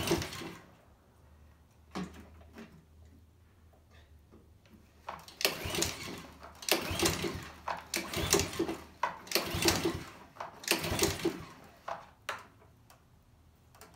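Honda walk-behind lawnmower engine cranked by its recoil pull-starter, about five pulls in quick succession, each about a second long. The engine does not fire: a no-start after sitting all winter.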